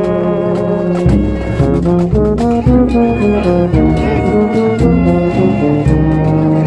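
Marching brass band of large upright brass horns playing a tune in held notes, with bass drums beating underneath.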